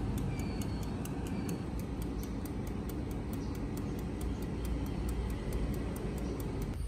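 Air fryer running: its fan gives a steady low noise while the mechanical dial timer ticks evenly, about four ticks a second.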